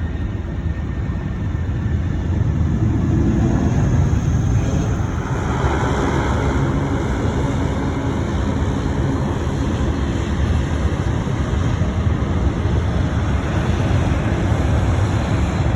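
Jet airliner engines rumbling, growing louder a few seconds in and holding, with a faint high whine riding on top briefly.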